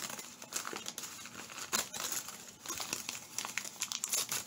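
Newspaper wrapping crinkling and rustling as it is pulled open and peeled off a plant, in a run of quick, irregular crackles.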